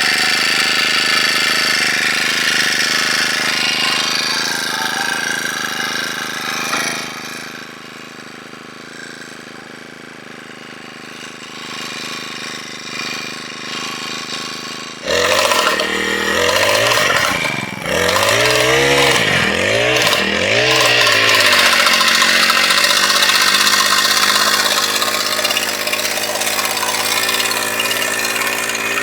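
A small engine running steadily, easing off partway through. About 15 s in an engine starts up abruptly, revs up and down a few times, then settles into a steady fast run.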